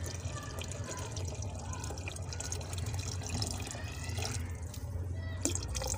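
Water poured in a steady stream from a jug into a pot of curry gravy, splashing into the liquid, over a steady low hum.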